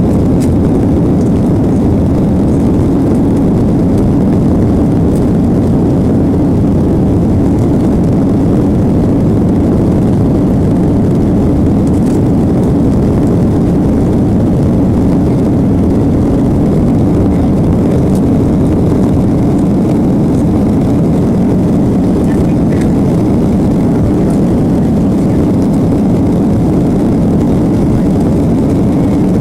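Southwest Boeing 737's jet engines running with a steady low rumble that holds its level, neither spooling up nor dying away.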